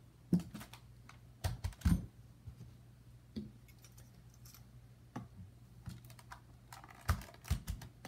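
Scattered light clicks and knocks of a DJI Phantom 4's plastic drone body and gimbal being handled and set down on a padded work mat as the gimbal is fitted back onto the drone. Small clusters of louder knocks come about a second and a half in and again near the end.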